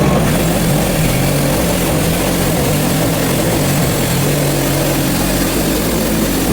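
Engine of a Hudson HFE30 portable band sawmill running steadily under load while the band blade cuts through a hard sugar maple log.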